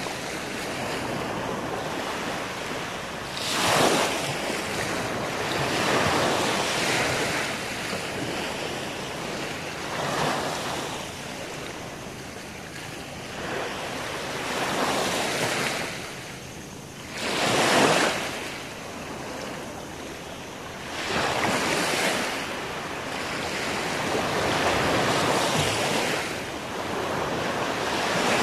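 Small sea waves breaking and washing up a sandy beach, the surf swelling and fading every few seconds, with a few louder breakers.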